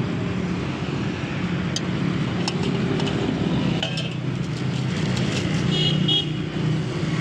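Steady low rumble of road traffic, with a run of light metal clinks from spoons against steel plates and bowls through the middle, a few ringing briefly.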